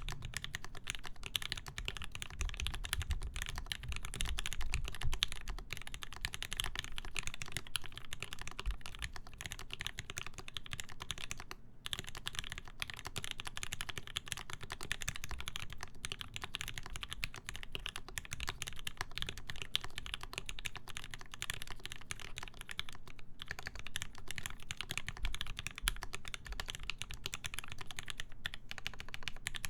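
Continuous fast typing on a custom mechanical keyboard with lubed Gateron Ink linear switches, a full brass plate, foam-dampened case and GMK keycaps: a dense stream of keystroke clacks with brief pauses around twelve and twenty-three seconds in.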